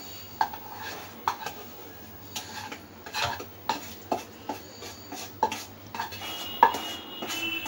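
Metal cookware clinking and scraping as thick besan barfi mixture is worked out of a kadai onto a steel plate: a string of sharp clinks about twice a second, the loudest near the end.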